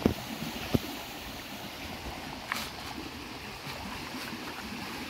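Swollen, muddy forest creek in flood after rain, its water rushing with a steady wash. Three sharp knocks cut through it: two in the first second and a weaker one about halfway.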